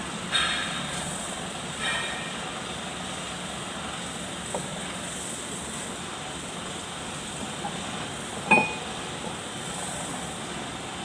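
Metal parts knocking as they are handled during repair work on a rotovator. A couple of light knocks come early, then one sharp metallic clink with a short ring about eight and a half seconds in, over a steady background hum.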